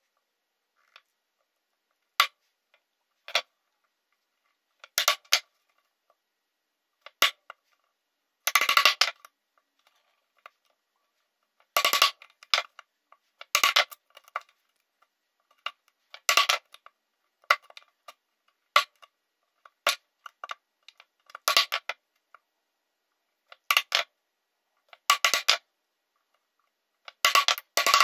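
Claw hammer tapping a wood chisel as it squares up the corners of holes cut in a wooden tabletop: sharp, slightly ringing taps, singly or in quick clusters, every second or two.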